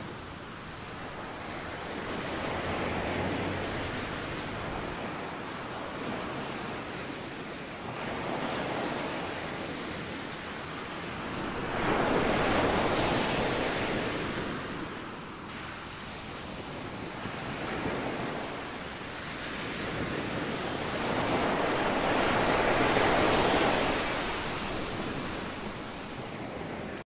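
Sea waves washing onto the shore, rising and falling in slow surges every few seconds, with the biggest swells about halfway through and near the end.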